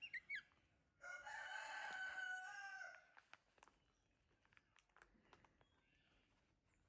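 A rooster crows once, a held call of about two seconds that drops in pitch at the end. It comes just after a few short, high chirping squeaks from the baby macaque at the very start.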